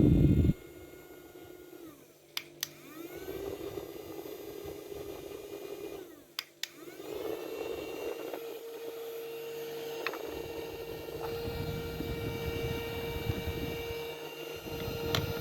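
Small portable USB fan's motor whirring. It drops sharply about half a second in, then changes pitch and level as it is switched between speeds, with a pair of clicks from its switch about two and a half and six and a half seconds in.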